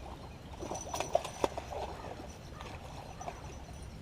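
A few sharp knocks and clicks, three close together between about one and one and a half seconds in, over a steady low hum, with faint voices.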